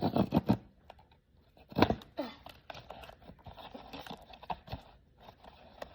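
Blind-box packaging being opened by hand: crinkling, tearing and scattered clicks of wrapping, loudest at the start and again about two seconds in.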